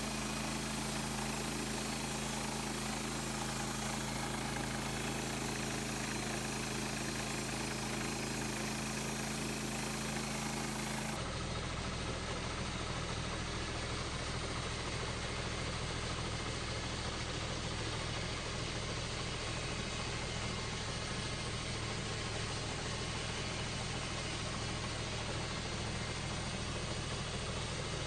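Gasoline engine of a Woodland Mills HM130 Max portable bandsaw mill running steadily. The sound changes abruptly about eleven seconds in, at an edit.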